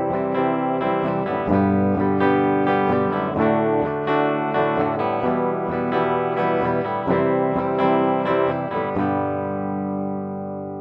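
Guitar recording playing back, picked notes and chords over a clean background: the track has had its background hiss taken out with noise reduction. About nine seconds in, a last chord rings and fades away.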